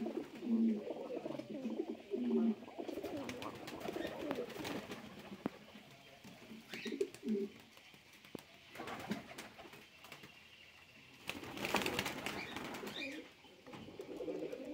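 Domestic pigeons cooing in a loft, low warbling coos repeated again and again, with a louder burst of noise about two-thirds of the way through.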